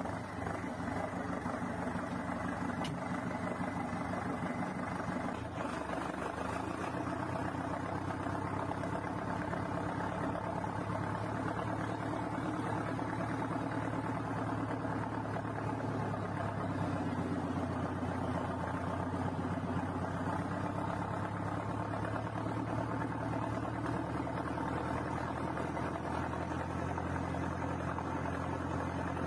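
Valtra BM125i tractor's diesel engine running steadily through a straight-through exhaust with no muffler, its engine speed shifting slightly a couple of times.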